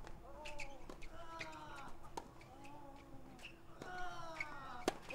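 Tennis ball bouncing on a clay court, a few sharp impacts with the loudest near the end, while birds call repeatedly with drawn-out, arching calls.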